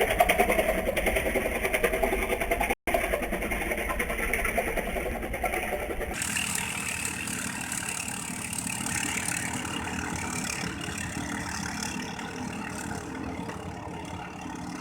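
Katinting longtail boat engine running steadily. It breaks off for an instant about three seconds in, then about six seconds in gives way to a quieter engine sound that slowly fades.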